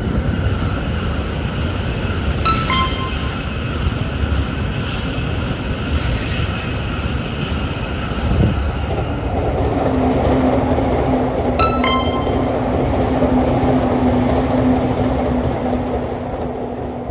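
Electric passenger train running past at speed close by: a loud, steady rush of wheels on rail and air that starts suddenly. About halfway through, a steady hum joins in, and it all fades away near the end.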